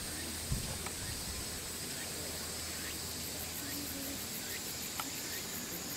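Steady, high-pitched chorus of insects with an even pulsing rhythm, and a brief thump about half a second in.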